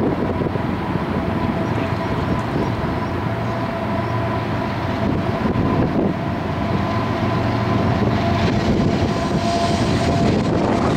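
Union Pacific grain train approaching: the lead diesel locomotive's engine rumbles steadily and grows slightly louder toward the end, with faint steady high tones over it.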